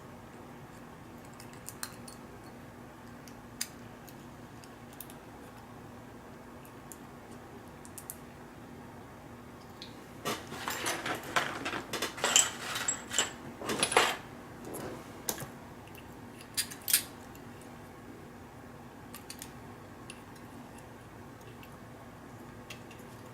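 Small metal lock parts and a key being handled as a pin-tumbler lock cylinder is taken apart: a few scattered light clicks, then a dense run of metallic clinks and rattles about halfway through, and a couple of sharp clicks soon after.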